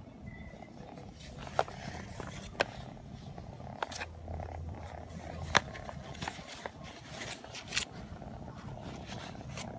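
British Shorthair kitten purring steadily, with about half a dozen sharp clicks scattered over it, the loudest about halfway through.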